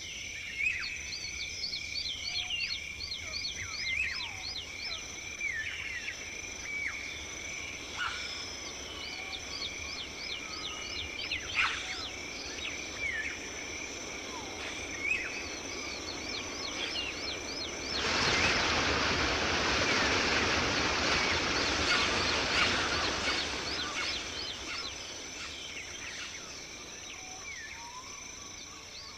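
Tropical rainforest ambience: a steady high insect drone, with many short, quick falling calls from forest animals over it. About two-thirds of the way through, a loud even rushing noise swells up, then slowly fades away.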